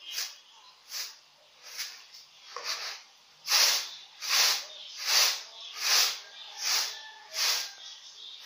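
Pounded rice grains swishing and rattling on a plastic winnowing tray as it is tossed, in a steady rhythm a little faster than one swish a second that grows louder about three and a half seconds in. This is winnowing to separate the rice from its bran.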